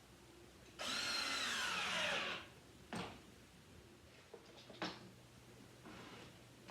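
A power drill runs for about a second and a half, its pitch falling steadily, then stops. A sharp click and a few light knocks follow.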